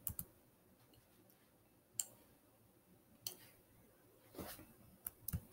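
A few isolated computer keyboard and mouse clicks, a second or more apart, against near silence, as a spreadsheet formula is typed and a cell range selected.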